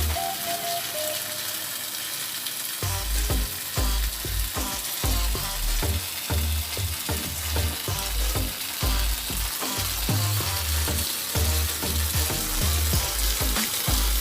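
Background music with a deep bass line that comes and goes in a repeating pattern, over a steady crackling hiss.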